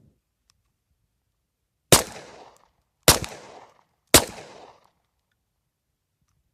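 Three gunshots from a Hi-Point 9mm, about a second apart, each with a short echoing tail.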